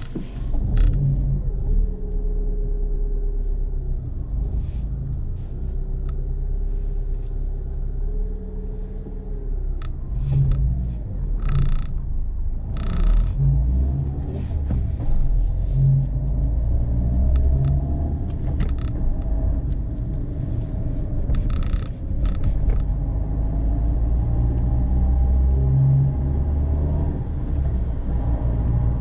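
Car driving, heard from inside the cabin: a steady low rumble of engine and tyres, with the engine note rising and falling a few times. A few short knocks come near the middle and again later.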